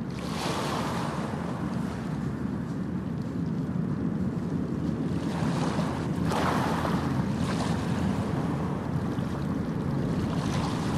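Ocean surf: a steady rushing wash with waves surging in a few times.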